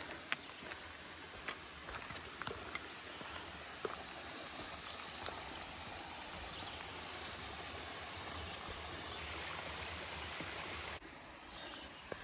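Steady rush of a mountain stream's running water, with a few sharp clicks in the first few seconds. The sound changes abruptly near the end.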